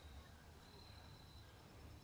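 Near silence: faint background tone with a low rumble and a thin high whine that fades in and out.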